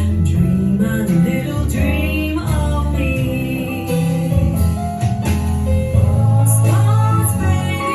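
A song with a singing voice, plucked guitar and a strong bass line, played back through Wharfedale Elysian 4 floor-standing speakers driven by a McIntosh MA12000 amplifier.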